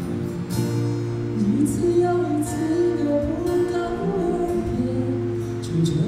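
Acoustic guitar playing with a voice singing a wavering melody over it.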